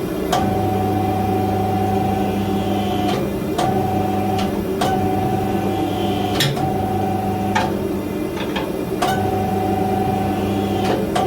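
Hydraulic forging press, a converted oil-can crusher, working in repeated strokes. Its pump hum and a steady whine come on under load for one to three seconds at a time, about six times. Each spell starts and ends with a sharp click.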